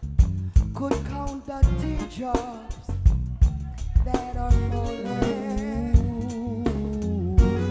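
Live band playing reggae: a drum kit heard close up, with steady snare and cymbal hits, under a singing voice.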